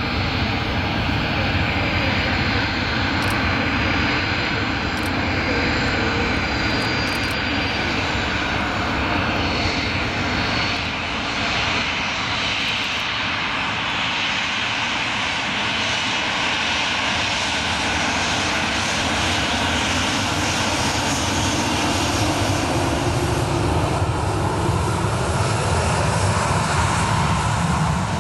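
Boeing 737-800's CFM56-7B turbofan engines running at taxi power as the jet taxis, a steady whine over a continuous rumble.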